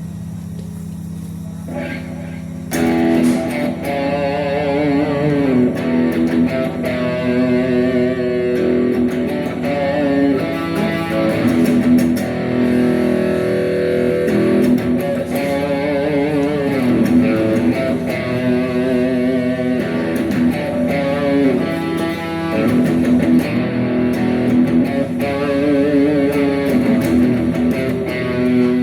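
Rock music led by electric guitar, with bass. A low chord is held at first; about three seconds in, the louder full part comes in with wavering, bending lead notes.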